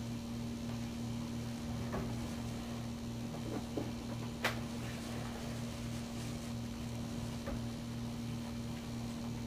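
A steady machine hum with a low throb that pulses evenly, and a few faint short clicks.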